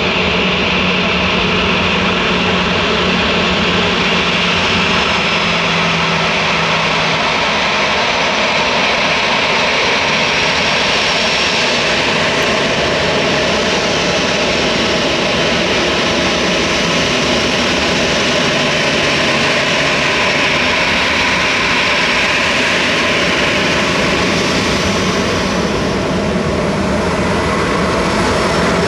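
Airbus A319 airliner's jet engines, a loud, steady sound that carries on without a break.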